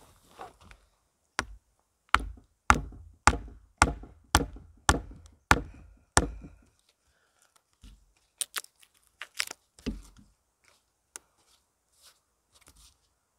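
A wooden peg being driven into a pole joint with a log-section mallet: about nine hard wood-on-wood knocks, roughly two a second, then a few lighter taps and handling noises near the end.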